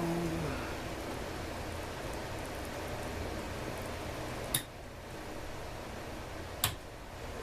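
Steady background hiss and low hum, with two sharp clicks about two seconds apart in the second half.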